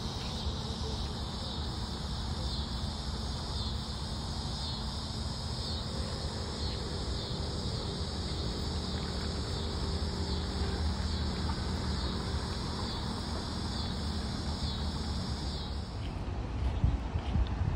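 Cicadas buzzing steadily in the summer trees, a high drone with a faint regular pulse that stops near the end, over a low rumble.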